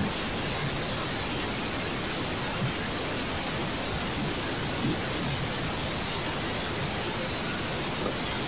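A steady, even hiss of background noise, with a couple of faint soft knocks.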